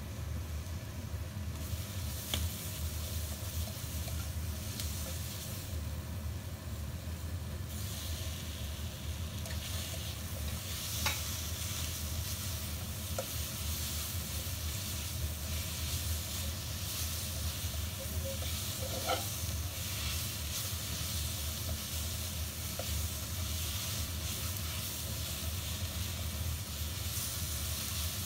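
Chicken and vegetables sizzling in a hot wok while a spatula stirs and scrapes them, with a few sharp clicks of the spatula against the pan. The sizzle grows louder about two seconds in and again near eight seconds, over a steady low hum.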